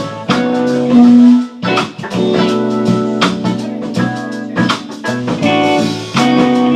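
A band playing instrumental music with guitar and drums, with a loud held low note about a second in.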